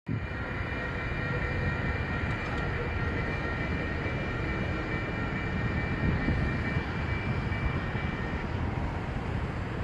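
Railroad grade crossing bell ringing, with steady high tones over a low rumble, then cutting off about eight seconds in as the crossing gate comes down: the crossing is activated for an approaching rail vehicle.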